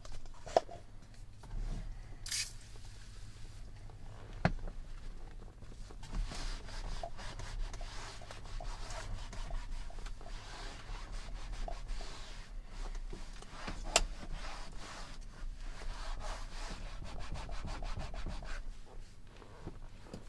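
A cloth wiping back and forth over a plastic glove box lid in repeated rubbing strokes, cleaning off leftover residue. There are a short hiss near the start and a few light knocks.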